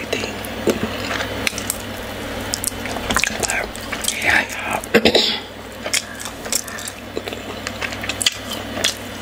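Close-miked eating sounds: wet, sticky squishes and smacks as fingers tear a piece off a soft dough ball and work it with soup, along with lip smacks and chewing in the mouth. Many short clicks and smacks, the loudest about five seconds in.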